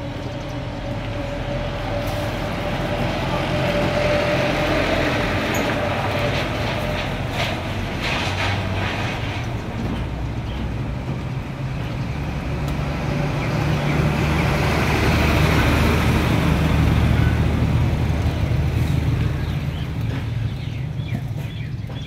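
Low rumble of passing motor traffic that swells twice, a few seconds in and again past the middle.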